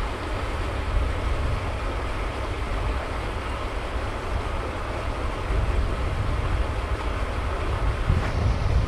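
Steady outdoor background noise with a low, uneven rumble and no distinct events.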